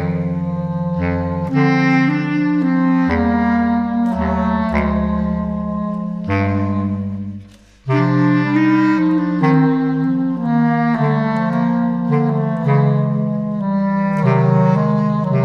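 A choir of multitracked bass clarinets playing a jazz ballad in close harmony, with held chords over a low bass line. About seven seconds in the chord fades away almost to silence, then the ensemble comes back in.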